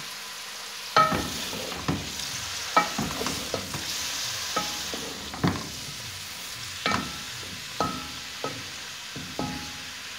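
Chopped eggplant, onion and green chillies frying in hot oil in an aluminium pot, sizzling steadily, while a wooden spatula stirs them. The spatula knocks against the metal pot about ten times, each knock ringing briefly.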